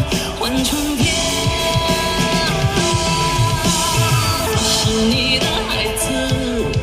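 Song playing: a male vocalist holding long notes over instrumental accompaniment.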